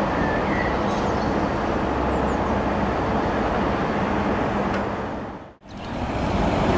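Airbus H145 twin-turbine helicopter running on the ground: a steady, loud rush of turbine and rotor noise with a low hum. The sound fades out and straight back in about five and a half seconds in.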